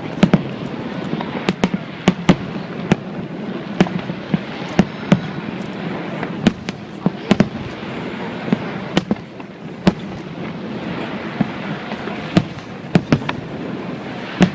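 Fireworks exploding overhead: a quick, irregular run of sharp bangs, often two or three close together, over a steady background din, with a short lull about two-thirds of the way through.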